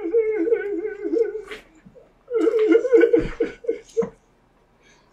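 A high voice vocalizing without words in a wavering, sing-song pitch, in two stretches of a second or two each, with a low bump about three seconds in.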